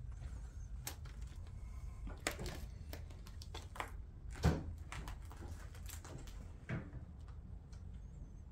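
Scattered, irregular knocks and clicks of people moving about a room, the loudest about four and a half seconds in, over a steady low rumble.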